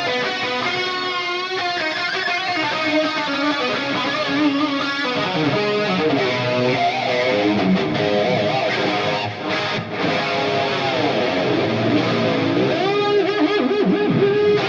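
Electric guitar through an Axe-FX III lead patch, clipped hard with heavy gain so it sounds like a keyboard synth lead, with chorus, delay, reverb and a stereo enhancer, playing a sustained lead line with vibrato and a bend near the end.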